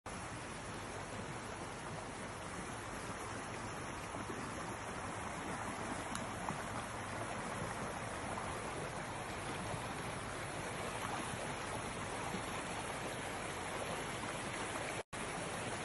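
Shallow forest stream running over rocks, a steady rush of water that grows slightly louder. It cuts out for a moment near the end.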